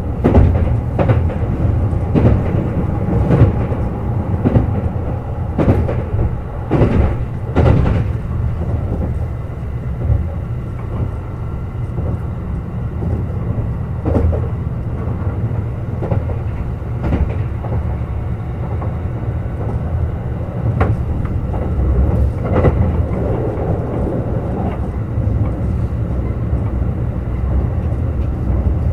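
Kintetsu Urban Liner Plus limited express train running, heard from on board: a steady low rumble of wheels on rail, with a quick run of clacks over rail joints and points in the first eight seconds, then only a few single clacks.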